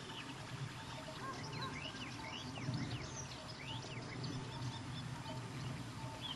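Small birds singing in a run of quick rising and falling chirps, busiest in the first half, over a steady low rumble.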